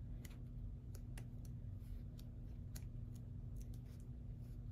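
Faint, scattered crisp clicks and ticks of sticker-book pages being handled and turned, over a low steady hum.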